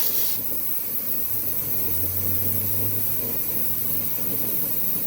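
Loud, steady rushing hiss from a fire bead-seating attempt on a minibike's tubeless tire, cutting off abruptly near the end.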